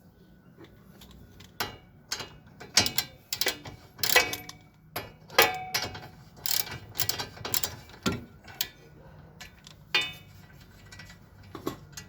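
Hand tools clinking and knocking on the steel parts of a car's front suspension: a run of irregular metallic clicks and knocks.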